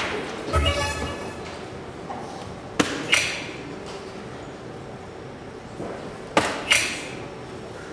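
Two darts striking a soft-tip electronic dartboard about three and a half seconds apart, each a sharp tap followed a moment later by the machine's fading electronic hit sound as it scores the dart. A short electronic jingle from the machine sounds near the start.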